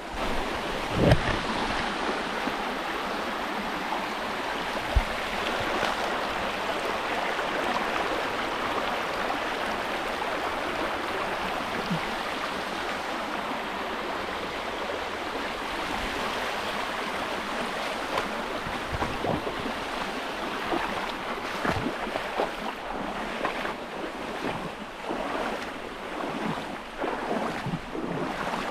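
Steady rush of flowing river water, with a sharp knock about a second in and a lighter one a few seconds later.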